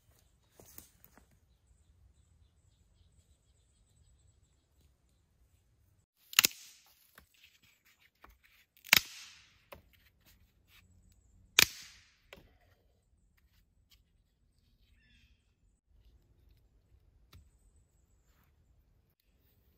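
Dry dead sticks snapped by hand for firewood: three sharp cracks about two and a half seconds apart, each followed by a short crackle.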